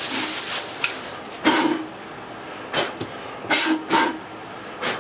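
Plastic packaging rustling and crinkling in several short bursts as a DI resin filter cartridge and its clear plastic housing are unwrapped and handled.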